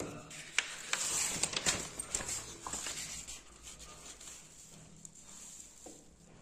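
Paper rustling as a page of a printed exam booklet is handled and turned, with a few sharp crackles in the first half before it dies down.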